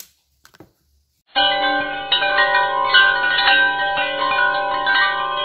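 A chiming, bell-like jingle of ringing notes, a time-skip transition sound effect, starting about a second in after a couple of faint clicks.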